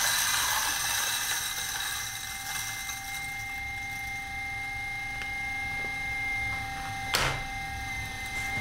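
Timemore Sculptor 078 electric coffee grinder with 78 mm flat burrs, running and grinding a dose of beans. It gives a steady motor whine at two pitches, with a gritty rattle that is loudest in the first second as the beans are tipped in, then settles to an even grind. There is a single sharp knock about seven seconds in.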